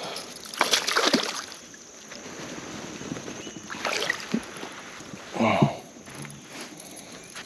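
A few scattered knocks and bumps on a fishing kayak's hull over faint water and wind noise; the loudest, a short thud with a brief low tone, comes about five and a half seconds in.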